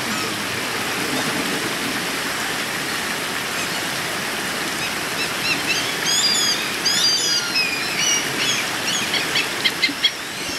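Steady rush of a creek's flowing water. From about six seconds in, quick high-pitched bird chirps sound over it, thickening toward the end.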